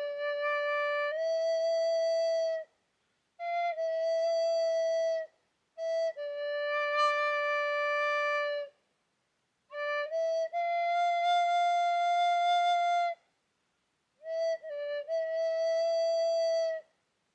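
Background music from a solo wind instrument: slow phrases of long held notes, each a few seconds long and opening with a few quick ornamental notes, separated by short silences.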